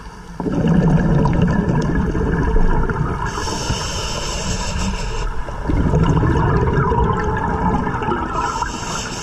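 Scuba regulator breathing: a long rush of exhaled bubbles about half a second in, the hiss of an inhalation, then a second bubble exhalation near the six-second mark followed by another inhalation hiss near the end.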